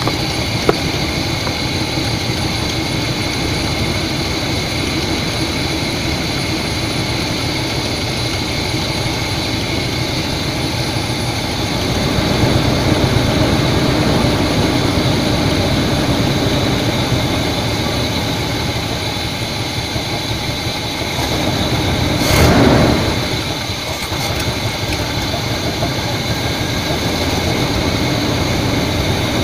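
1982 GMC's 350 small-block Chevy V8 running with its engine fan, while STP motor treatment is poured down the open carburetor. There is a short louder rush about three quarters of the way through.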